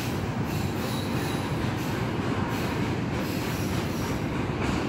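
Double-stack intermodal container cars rolling past at speed: a steady low rumble of steel wheels on the rails, with faint high wheel squeal now and then.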